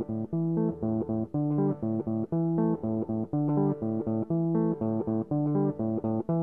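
Background music: a guitar riff of short plucked notes repeating in a steady rhythm.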